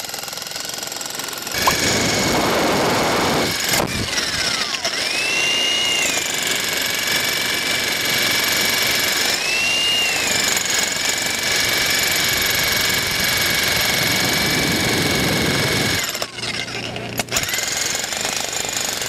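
Electric demolition breakers with chisel points hammering sideways into a concrete wall: a fast, steady hammering with a motor whine over it. It gets louder about a second and a half in and changes abruptly near the end.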